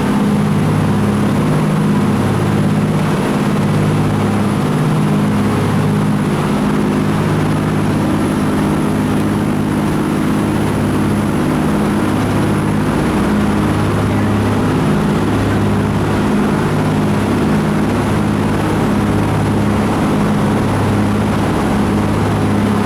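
Jet boat engine running under way, a steady low drone with a rushing noise over it.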